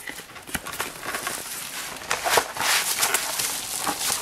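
Bubble wrap and plastic packaging crinkling and rustling against cardboard as wrapped parts are handled and slid out of a box. Scattered light clicks at first, then denser, louder rustling from about two seconds in.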